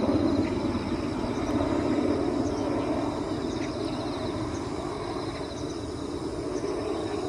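Helicopter rotor and engine drone that eases slightly after the start. Faint fast trilled phrases of an Arctic warbler's song come through it at the start and again about halfway through.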